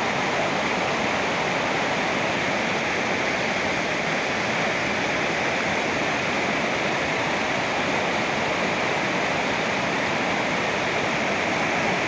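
Mountain waterfall cascading down over rocks: a steady, unbroken rush of falling water.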